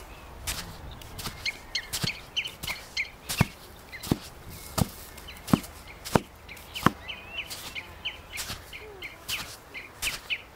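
Footsteps on a dry dirt path, even thuds at about one to two steps a second, with small birds chirping over them again and again.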